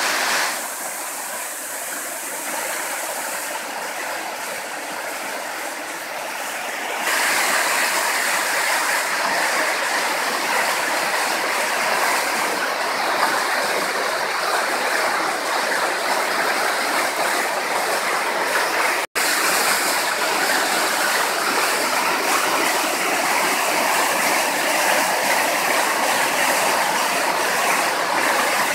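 Muddy floodwater rushing and churning through a small stream channel swollen by heavy rain, a steady loud rush that grows louder about seven seconds in.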